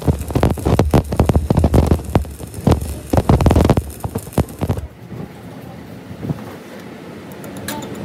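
Stick arc welding on a truck drive shaft: the electrode crackles and sputters unevenly, then stops abruptly about five seconds in. A faint, quick, regular ticking begins near the end.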